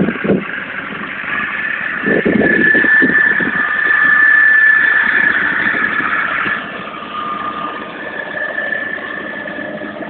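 McCormick MC 90 tractor's diesel engine running steadily, with a high steady whine over it that is loudest in the middle and fades a little after about six and a half seconds.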